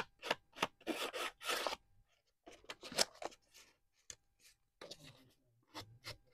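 Ink pad swiped along the edges of folded paper: a run of quick rubbing strokes, about three a second, for the first two seconds, then a few fainter scattered scrapes and paper rustles.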